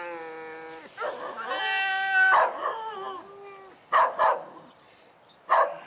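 Calico cat yowling in long, wavering cries, then giving several short, sharp hisses: a resident cat's hostile warning at a newly introduced cat.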